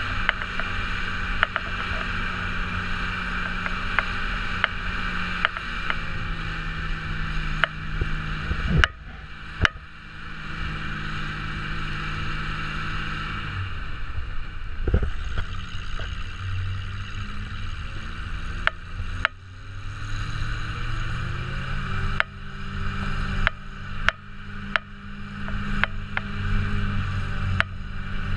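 1971 Thiokol snowcat's engine running as the machine drives along, its speed falling and rising a few times, with scattered knocks and rattles from the moving machine.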